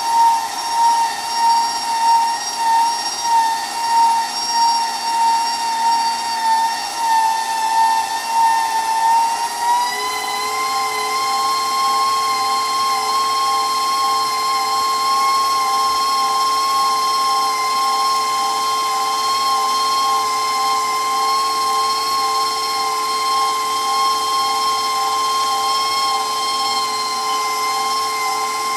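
KitchenAid stand mixer motor driving its food grinder attachment through ham, a steady whine that surges rhythmically about one and a half times a second. About ten seconds in the pitch rises a little and the surging stops, leaving an even hum.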